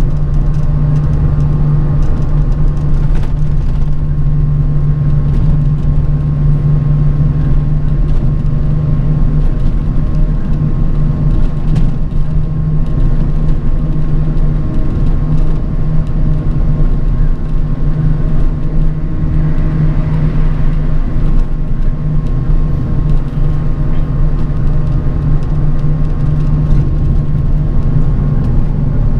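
Bus ride heard from inside the cabin: a steady low drone of engine and road rumble, with a faint constant whine and light rattles and clicks here and there.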